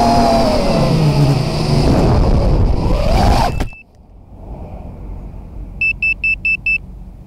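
Racing quadcopter's brushless motors and propellers whining at speed over rushing air, heard from the onboard camera, the pitch falling and then rising. The whine cuts off abruptly about three and a half seconds in with a short knock as the quad comes down in the grass. About two seconds later come five quick high beeps.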